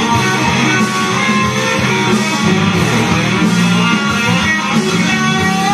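Instrumental break of a rock backing track: electric guitar and bass over a steady beat, with no vocal.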